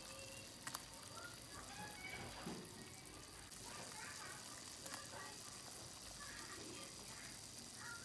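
Chicken broth simmering in a pot on a portable gas stove as chicken meatballs are dropped in, a soft bubbling with a couple of light clicks.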